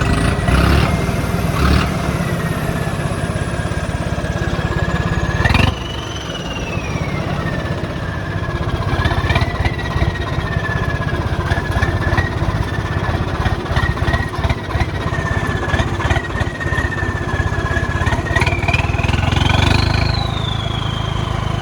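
Swaraj 855 tractor's turbocharged diesel engine running, with its turbo whistle rising and falling in pitch as the revs change; the whistle climbs sharply about six seconds in and again near the end.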